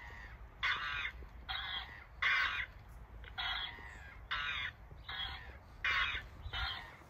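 Electronic calls from a plush flamingo toy and a plush dog toy setting each other off in turn: acoustic feedback between the two toys. About eight short squawk-like calls follow one another, roughly one a second.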